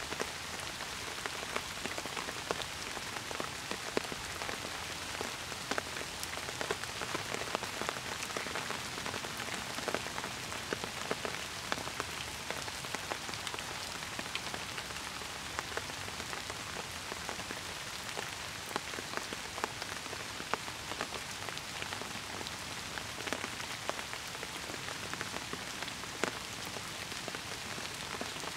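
Steady rain falling, an even hiss with many separate drop hits close by.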